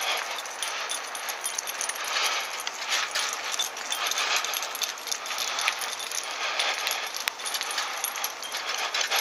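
Bicycle rolling along a wet tarmac lane: a steady hiss of tyres on the wet road with irregular light metallic clinking and rattling from the bike and its dog-springer attachment.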